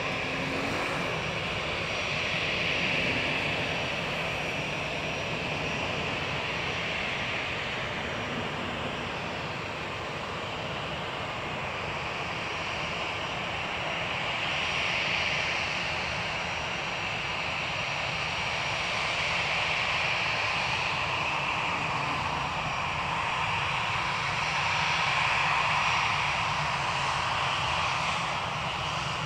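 Airbus A321 twin jet engines at high power on the takeoff run: a steady jet noise with a strong hiss that swells and eases several times.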